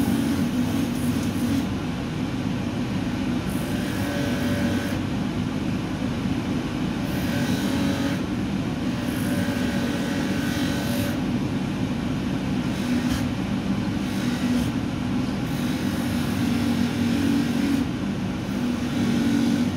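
Mini-Polimat bench polishing machine running steadily, its abrasive satin-finishing wheel grinding a watch bracelet held against it. The grinding rises into a brighter hiss in several spells of a second or two as the metal is pressed to the wheel.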